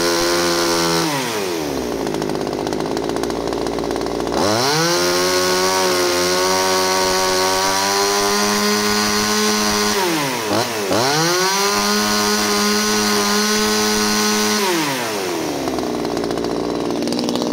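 Small two-stroke pruning chainsaw engine revved and held at high speed, dropping to idle about a second in, revving back up a few seconds later, dipping briefly and recovering midway, then falling back to idle near the end.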